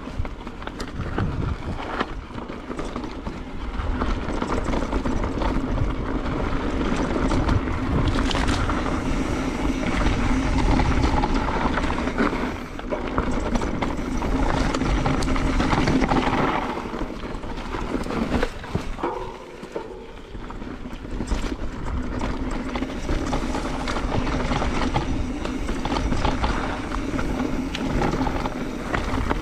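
Mountain bike ridden along a dirt trail: steady tyre and trail noise with rattling knocks from the bike over bumps, and a heavy rumble of wind on the microphone.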